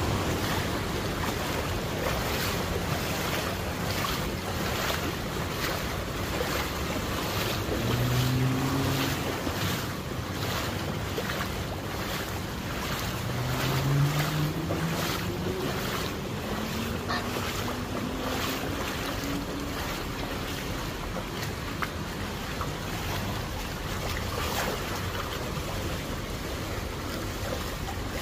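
Footsteps wading through shin-deep floodwater, sloshing in a steady rhythm of about one step every two-thirds of a second, over a constant rush of water and wind on the microphone. A low, rising hum comes in briefly twice near the middle.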